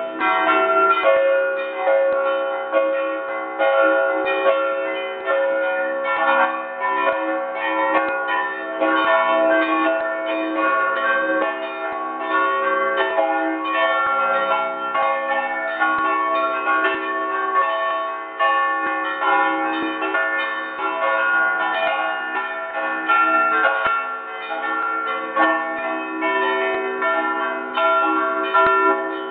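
Church bells ringing a full peal, many bells struck rapidly so their ringing tones overlap without a break, heard from inside the belfry right beside the bells.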